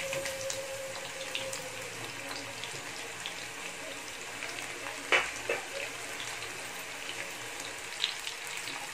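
Batter-coated chicken pieces deep-frying in hot oil in an iron kadai: a steady sizzle with fine crackling, from pieces just slid into the oil. Two sharp knocks come about five seconds in.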